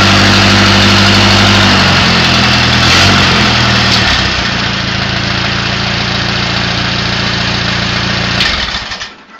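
Massey Harris Pacer tractor engine running steadily, its note shifting lower about two to four seconds in and then holding even. Near the end it is shut off and dies away within a second.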